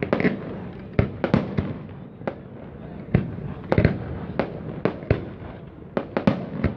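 Aerial firework shells bursting overhead: a fast, irregular string of about a dozen sharp bangs, often less than a second apart.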